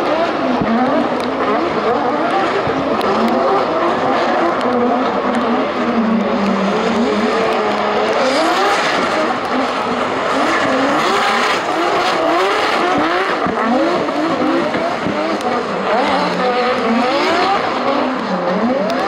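Two drift cars running in tandem, their engines revving hard with the pitch rising and falling again and again as the throttle is worked, over a steady hiss of spinning, sliding tyres.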